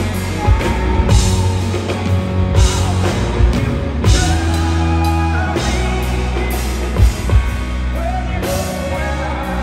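Rock band playing live at full volume, with a pounding drum kit, heavy bass and electric guitar carrying a wavering melodic line.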